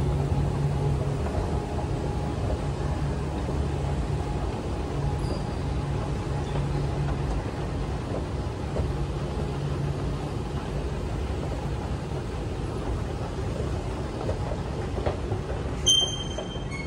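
Steady low hum and rumble of metro station machinery (the escalator and ventilation), fairly loud throughout. A short, high electronic beep sounds near the end.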